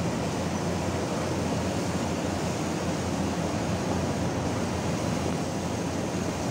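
Coal pouring in a continuous stream from a floating crane's loading chute onto the pile in a ship's cargo hold: a steady, deep rushing noise with a low machinery hum beneath it.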